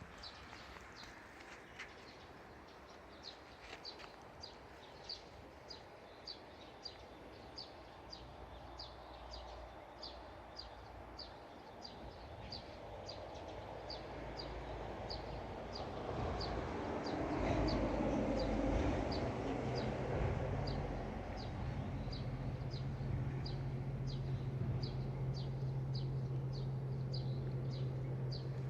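Outdoor ambience with a short high chirp repeating steadily, about one and a half times a second. A few soft knocks sound early on. Midway a rumbling noise swells up, then settles into a steady low hum.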